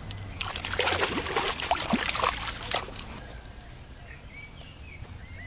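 Water splashing and sloshing for about two and a half seconds, as a small carp is handled at the pond's edge, then a few faint bird chirps.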